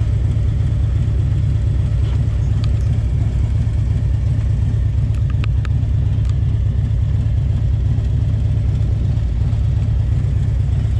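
2010 Harley-Davidson Electra Glide Ultra Classic's V-twin engine running steadily while riding.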